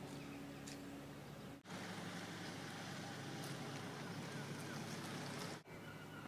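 Quiet outdoor harbour ambience: a steady low hum at first, then an even background hiss. The sound changes abruptly twice, at cuts.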